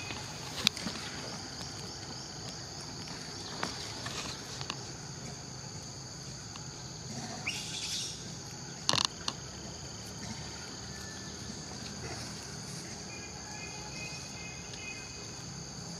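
Steady high-pitched drone of an insect chorus, two unbroken tones held throughout, with a few short sharp clicks, the loudest about nine seconds in.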